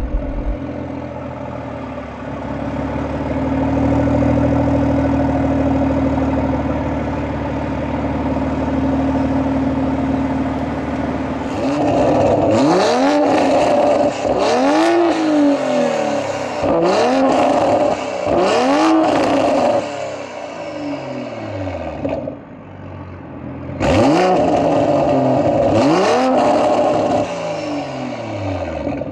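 Toyota A90 GR Supra exhaust through an HKS Hi-Power cat-back system, idling steadily, then revved in a run of about five short blips, each rising and falling back. After a few seconds back at idle it is blipped a few more times and drops back to idle.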